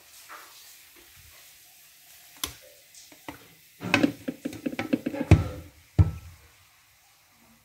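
Cooked shrimp scraped and tipped out of a non-stick frying pan onto a wooden board: a busy clatter of scraping and sliding, ending in two heavy knocks of the pan against the board.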